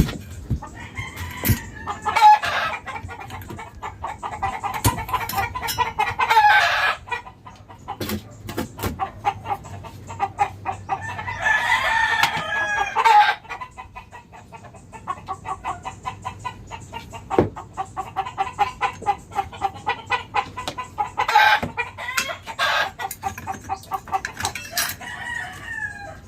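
Roosters crowing in three long bouts, with chickens clucking in quick repeated notes in between and scattered sharp clicks.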